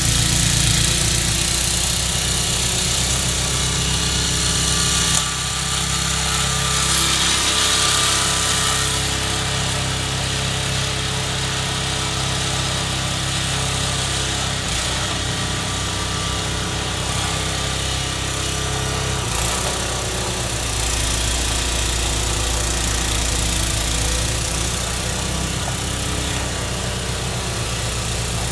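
MTD snowblower's Tecumseh single-cylinder engine running under load while clearing heavy wet snow, with a steady hiss over it. The engine note shifts about five seconds in and again about twenty seconds in.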